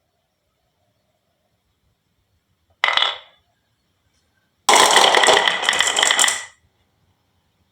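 Marbles clattering along a marble run: a short sharp clatter about three seconds in, then a dense, ringing rattle for about two seconds.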